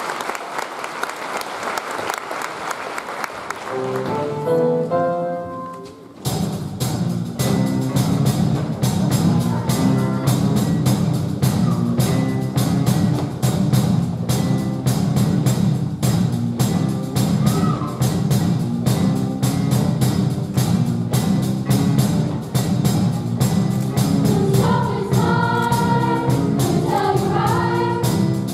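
Audience applause fades out, a few sung notes follow, and about six seconds in a loud backing track with a heavy bass and a steady beat starts. A show choir sings over it, the voices coming through more strongly near the end.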